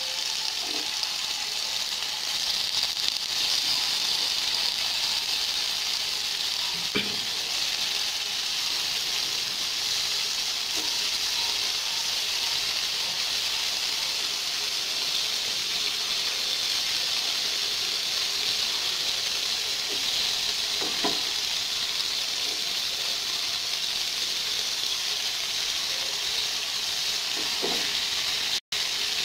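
Cubes of white tofu sizzling steadily in hot oil in a non-stick pan, a constant high hiss of frying, with a few soft knocks as pieces are added and, near the end, a wooden spatula stirring them.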